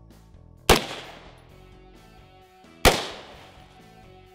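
Two AR-15 rifle shots firing .223 rounds, about two seconds apart, each sharp crack trailing off in a brief echo. Background music plays underneath.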